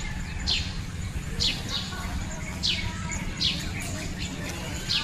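A bird chirping repeatedly: about six short, quickly falling chirps spaced roughly a second apart, over a steady low rumble.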